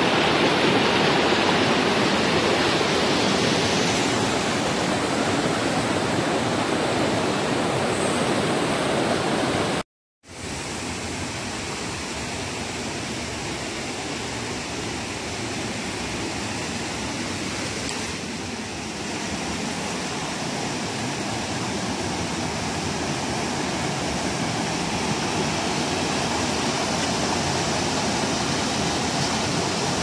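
Rocky mountain stream rushing over boulders in small whitewater cascades, a steady rush of water. It cuts out for a moment about ten seconds in, then carries on a little quieter.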